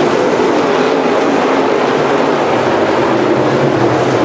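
A field of dirt-track Modified race cars running at speed around the oval, their V8 engines a loud, steady drone.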